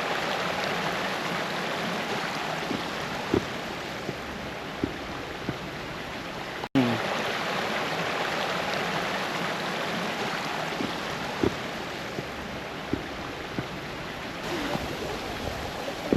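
Brook water rushing and cascading over stones in a steady rush, broken by a momentary dropout about seven seconds in, with a few faint short knocks.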